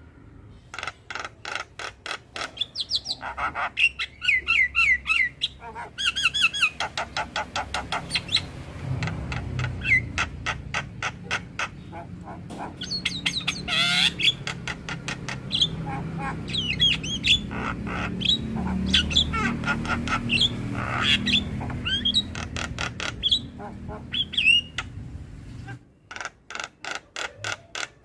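Javan myna (jalak kebo) singing a long, varied song of fast repeated clicking notes, chattering trills and short whistles, broken by brief pauses. A low rumble lies under the song through the middle.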